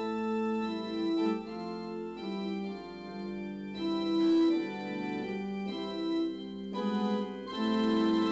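Background music: a slow keyboard tune of held, organ-like chords, the notes changing about once a second.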